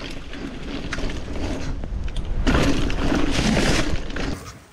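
Mountain bike clattering down a muddy trail, then a loud rush of noise as the rider nosedives off a jump into bushes, cut off sharply near the end.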